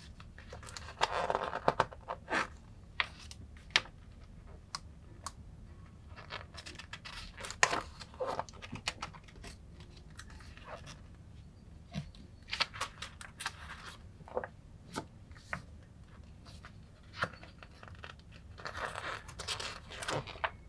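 Pages of a paper instruction booklet being turned: four bursts of paper rustling a few seconds apart, with light taps and clicks of fingers on the paper in between.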